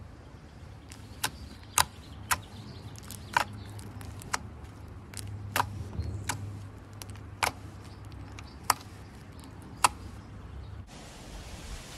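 Fingers poking and pressing thick green slime, giving sharp, irregular clicking pops, about ten of them, over a steady low hum. Near the end the sound cuts to an even hiss.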